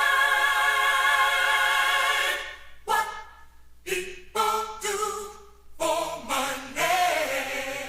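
Several voices singing a cappella in harmony: one chord held for about two and a half seconds, then a string of short sung phrases with brief gaps between them.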